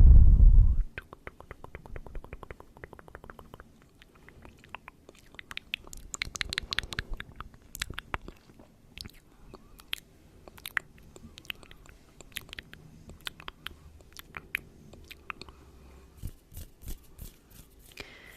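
Close-miked ASMR mouth sounds. A loud burst of heavy breathing into the microphone in the first second is followed by a long run of small, wet, sharp clicks and smacks, some in quick trains and some scattered.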